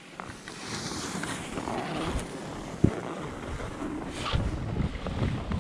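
Skis hissing and scraping over packed snow on a downhill run, with wind buffeting the microphone as the skier picks up speed. A single sharp click sounds near the middle.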